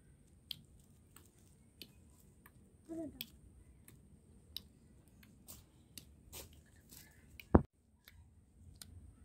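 Faint, scattered clicks and taps: handling noise as the hand-held puppet is walked across the soil. A short falling voice-like note comes about three seconds in, and a single sharp click sounds near the end.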